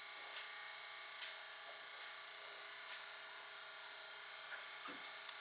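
Faint steady hum with a few light clicks, and a soft knock near the end.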